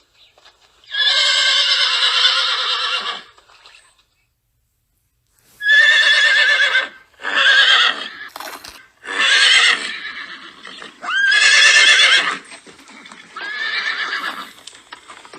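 Horse whinnying: one long neigh of about two seconds, then after a short pause a string of five shorter whinnies, several opening with a quick upward swoop in pitch.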